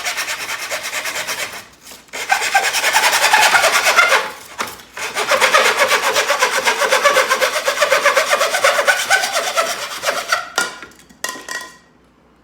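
A saw cutting through 2-inch PVC pipe with quick back-and-forth strokes, in three bouts with two short pauses, then a few lighter strokes as the cut finishes near the end.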